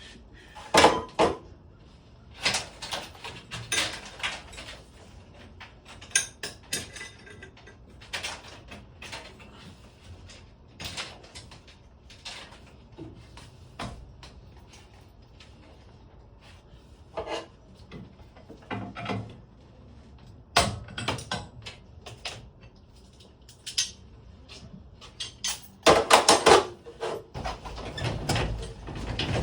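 Irregular metal clanks, clicks and rattles of hand tools and garage door hardware being handled during repair work, in scattered short bursts with a busier, louder cluster near the end.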